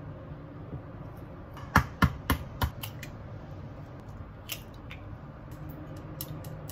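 An egg knocked several times in quick succession against the rim of a ceramic bowl to crack it, then chopsticks beating the egg in the bowl, clicking against its sides in a quick run near the end.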